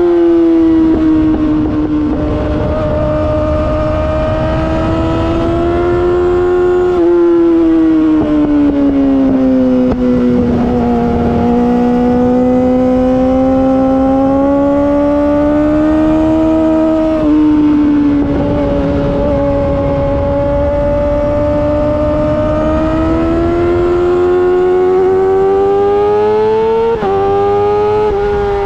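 Yamaha R6 inline-four with an Akrapovic Evolution Racing exhaust running at high revs while ridden, its pitch climbing and falling with the throttle. The pitch drops sharply twice at gear changes, and near the end it jumps up in quick steps.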